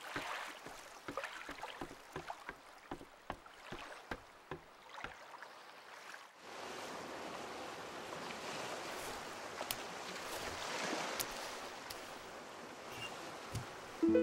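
Light, irregular knocks, about three a second, over faint water sounds from a small moored boat. About six seconds in, these give way to a steady rushing noise with no clear rhythm.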